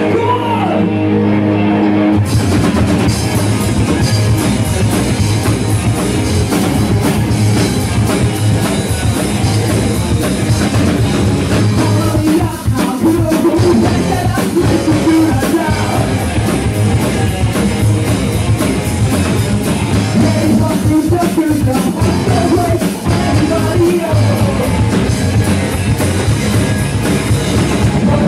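Psychobilly band playing live and loud: upright bass, drums and electric guitar. A held chord opens, the full band with cymbals comes in about two seconds in, and singing comes in over it in the second half.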